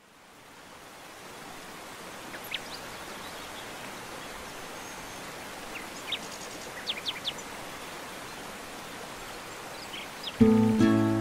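Steady rushing outdoor ambience with a few short bird chirps scattered through it. Near the end an acoustic guitar starts playing, much louder than the ambience.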